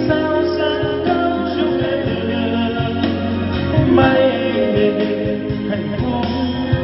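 A song with a singing voice and instruments playing through an MBA SA-8705 trolley karaoke speaker, with a 15-inch bass driver, mid driver and tweeter, with a steady bass line underneath.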